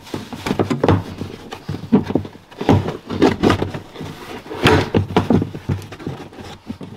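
Carpeted side trim panel in a BMW E34's boot being pulled loose by hand: irregular rustling and scraping of the lining, with repeated knocks as the panel flexes against the body.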